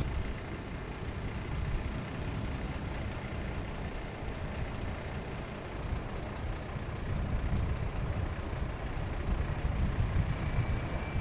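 Airport apron ambience: a steady low rumble of a heavy vehicle engine idling. A faint high whine comes in near the end.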